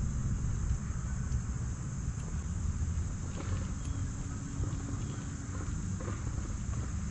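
Outdoor ambience: a steady rumble of wind on the microphone under a constant high-pitched insect drone, with a few faint light taps.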